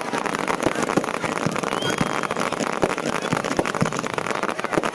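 Dense, rapid crackling and popping, with a few dull thuds spread through it, over the murmur of an outdoor crowd.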